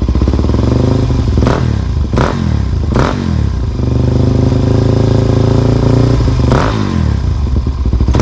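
Motorcycle engine running and being revved repeatedly, its pitch climbing and falling with each rev: three quick revs close together, then another a few seconds later.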